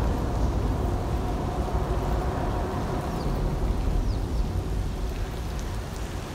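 Steady low rumble and hiss of outdoor background noise, with a few faint, short high chirps about three and four seconds in.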